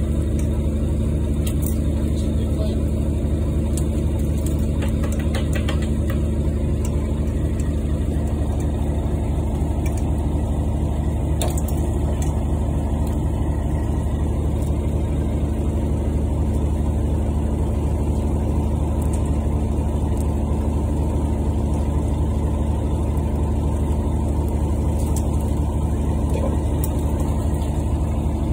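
A fishing boat's engine running steadily, a constant low drone with a fine even pulse.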